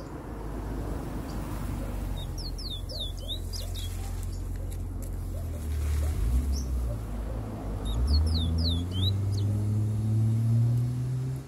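Caged bullfinch singing two short phrases of quick, sweeping whistled notes, one early on and one about eight seconds in. Under them a vehicle engine rumbles and rises in pitch over the last few seconds, the loudest sound near the end.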